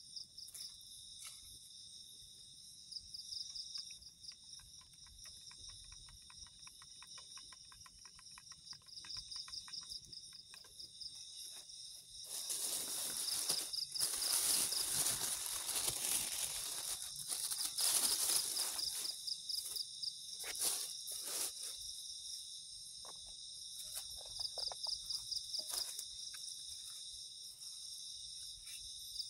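A steady chorus of crickets and other night insects trilling in high, pulsing chirps. From about twelve to nineteen seconds in, loud crinkling and rustling of a plastic bag being handled covers it, followed by a few scattered clicks and rustles.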